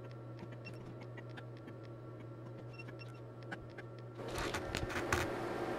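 Steady low electrical hum from bench test equipment, with faint scattered ticks. From about four seconds in, louder rustling and knocking joins in, like equipment being handled.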